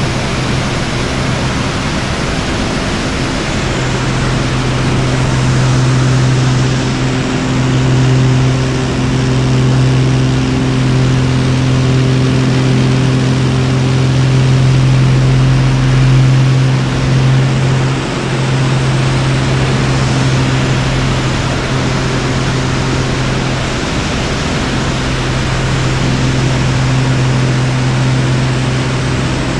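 Pitts aerobatic biplane's piston engine and propeller running at steady power, heard from on board under heavy wind rush. The engine note shifts a little in pitch several times as the plane manoeuvres.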